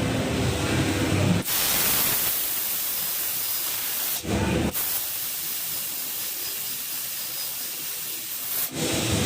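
High-power CNC laser cutting machine cutting metal plate: a steady, loud hiss of assist gas blasting through the cut. It breaks off sharply twice, with a lower machine rumble in between and near the end.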